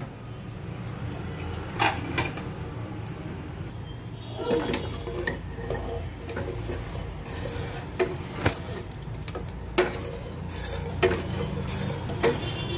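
A steel ladle stirring thick sambar dal in an open aluminium pressure cooker, scraping and now and then knocking against the pot's side, over a steady low hum.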